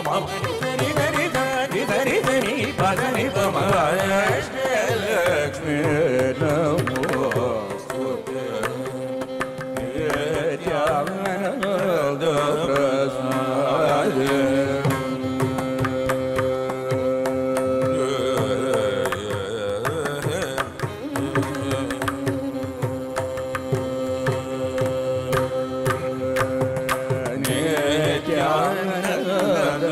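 Carnatic music: male voices singing with violin accompaniment and mridangam drumming, holding long steady notes through the middle of the passage.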